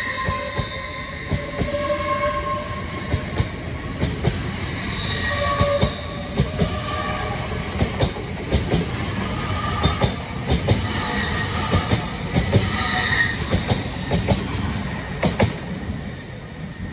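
An LNER express train's coaches running past alongside the platform: a steady rumble of wheels on rail with frequent sharp clicks and short, recurring high-pitched squeals. It fades in the last second as the final coach clears.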